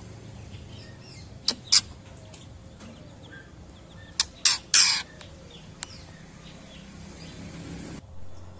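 Young white-rumped shama giving short harsh calls: two about a second and a half in, then three more around four and a half seconds in, the last one longest. Faint high chirps sound in the background.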